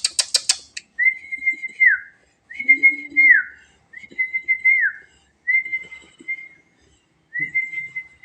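Whistling: five long notes held at one steady pitch, each ending in a downward slide, about a second and a half apart, after a quick run of sharp clicks at the very start.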